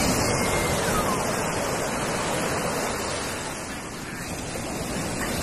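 Ocean surf washing onto a sandy beach: a steady rushing noise that eases a little past the middle and builds again near the end.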